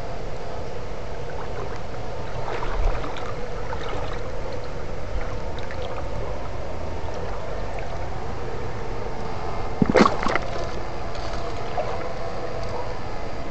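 Creek water sloshing as electrofishing poles are worked under a rock in shallow water, with a faint steady hum underneath. A short burst of sharp crackling clicks comes about ten seconds in.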